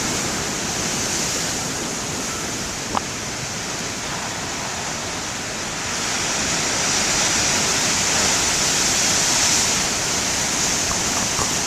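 Heavy ocean surf breaking, a continuous rush of water that grows louder about six seconds in. A single brief click sounds about three seconds in.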